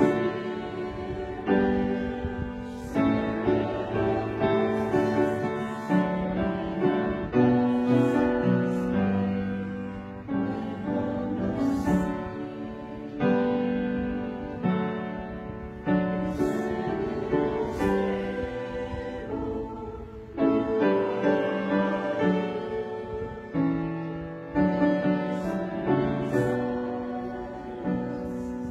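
Piano music: a slow piece of held chords and struck notes that decay.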